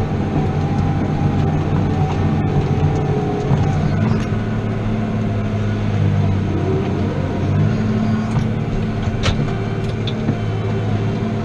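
New Holland T7.210 tractor's six-cylinder diesel engine running steadily under load while pulling a five-furrow plough, heard from inside the cab. The engine note steps up slightly about four seconds in.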